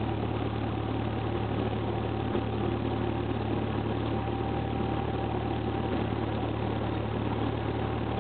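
Cessna 172R Skyhawk's four-cylinder Lycoming engine and propeller running steadily at taxi power, heard from inside the cabin.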